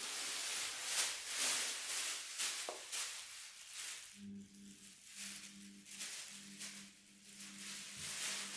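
Plastic shopping bag crinkling and rustling in repeated swells as a cat runs with the bag around its body. The rustling is loudest in the first few seconds.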